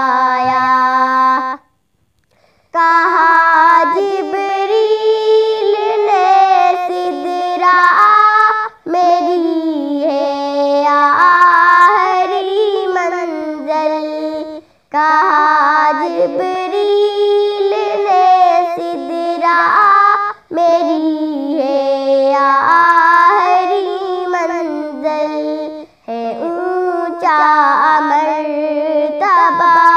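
A girl singing an Urdu naat solo, her voice unaccompanied, in long held and ornamented phrases. The phrases are broken by short pauses for breath about every five or six seconds.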